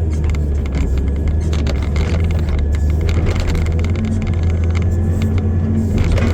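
Excavator's diesel engine running steadily under load, with frequent clanks and rattles of the machine at work and a sharper clank near the end.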